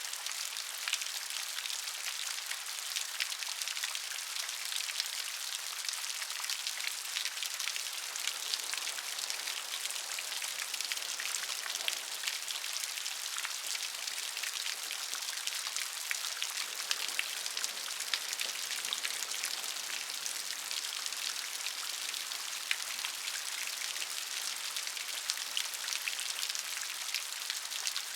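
Steady rain falling, a dense even hiss of drops with many small individual patters and no thunder.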